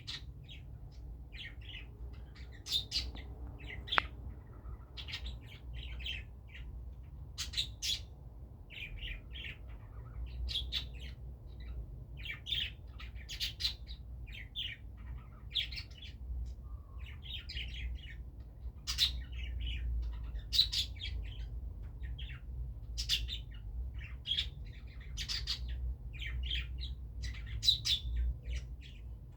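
Pet lovebirds chirping, a run of short, sharp chirps and squawks in quick clusters, with a steady low hum underneath.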